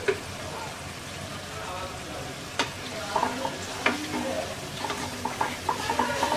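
Hilsa fish pieces frying and sizzling in spiced onion masala in a non-stick karai as the fish is sautéed (kosha). From about two and a half seconds in, a wooden spatula stirs and scrapes the pan, with several sharp knocks against its side.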